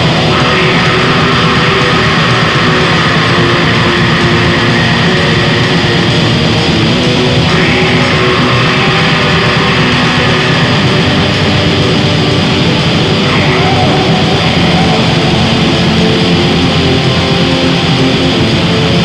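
Raw black metal: a dense, unbroken wall of distorted electric guitar over fast drumming, played loud and without a break.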